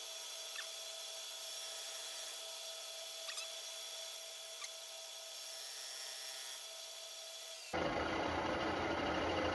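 Centec 2B milling machine running in horizontal mode, a disc cutter on its arbor cutting a metal bar: a steady machine whine with hiss and a few light ticks. About eight seconds in the sound turns abruptly louder and fuller.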